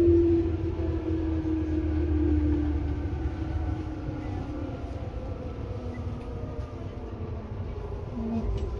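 Inside a Tobu 10030 series electric train, heard near the underfloor line breaker: steady rumble of the running train, with a motor and gear whine that falls slowly in pitch as the train slows. The rumble eases after the first few seconds.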